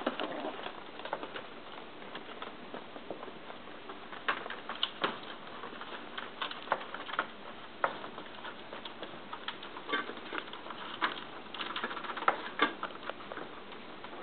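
Yorkshire terrier puppies scrabbling about a pen: irregular clicks and taps of their claws on the tile floor, with a few faint squeaky whimpers, mostly near the end.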